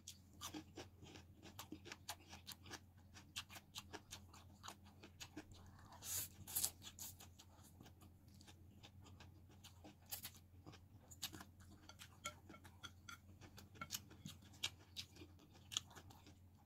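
Close-up eating sounds of spicy instant noodles and raw bitter gourd: faint chewing with many small wet mouth clicks and crunches, and a louder slurp of noodles about six seconds in.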